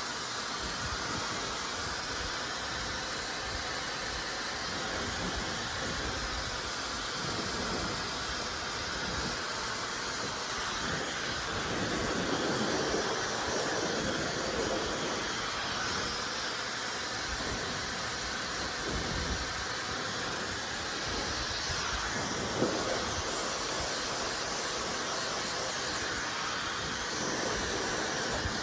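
Dyson Supersonic hair dryer running, blowing a steady rush of air, with a brief tap about two-thirds of the way through.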